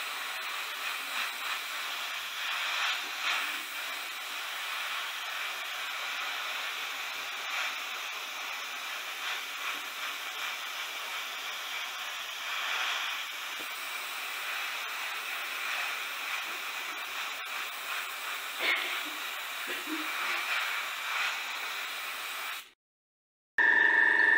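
Airbrush blowing a steady hiss of compressed air over drops of black primer. Near the end it cuts off, and after a short gap a louder, steady hum with several tones begins.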